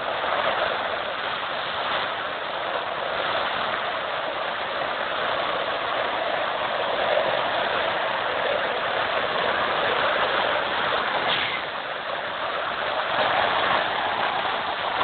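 Military MAN 5-tonne off-road truck driving through a flooded, muddy track, its diesel engine running under the steady noise of water splashing around the wheels.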